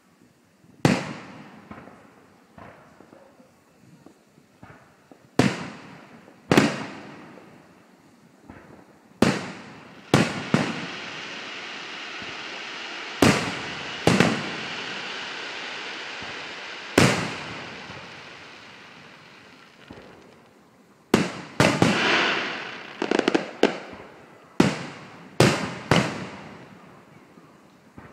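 Fireworks display: aerial shells bursting in about eighteen sharp bangs, each trailing off in echo. A long crackling hiss runs from about ten seconds in for some nine seconds, and a dense run of crackles and bangs comes a little past twenty seconds.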